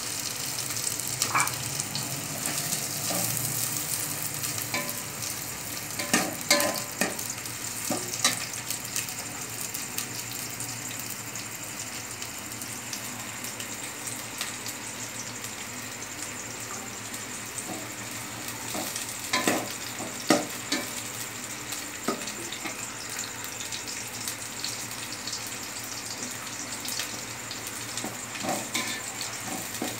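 Sliced onions sizzling in hot ghee in a metal pot, still pale at the start of frying. A slotted metal spoon scrapes and clinks against the pot now and then as they are stirred, with a cluster of these knocks about six to eight seconds in and again around twenty seconds.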